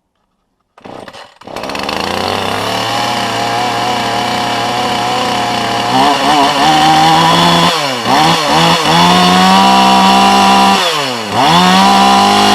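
Husqvarna 450 two-stroke chainsaw idling from about a second in. It is then revved up to high speed three times, its pitch dropping back briefly between revs.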